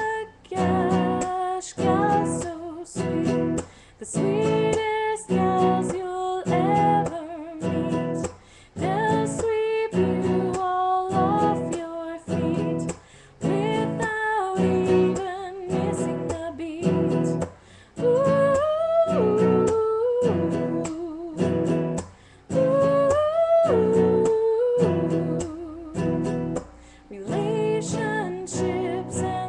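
A woman singing a song in short phrases, accompanied by a strummed acoustic guitar.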